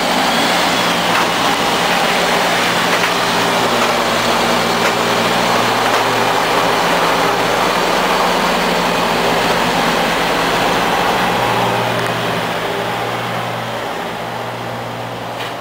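Diesel semi-truck pulling a refrigerated trailer, driving slowly past at low revs with a steady engine hum, fading as it moves away near the end.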